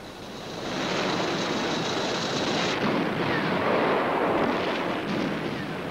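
A tank running through snow, a dense noisy rumble of engine and tracks that swells up about a second in and holds steady. A faint high whine runs over it and stops about halfway.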